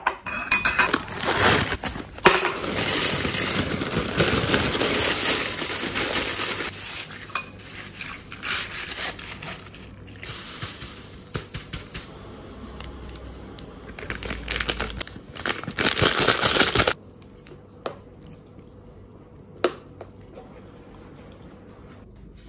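Dry cereal flakes pouring and rattling into a ceramic bowl in two spells, with scattered clinks between them; the pouring cuts off suddenly about three-quarters of the way through, leaving only a few faint clicks.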